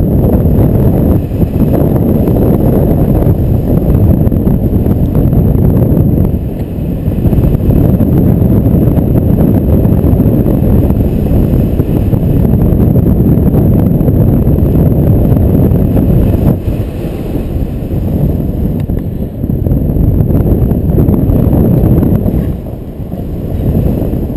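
Wind rushing over the camera microphone of a paraglider pilot in flight: a loud, low rumble that swells and eases with the airflow and drops off briefly a few times.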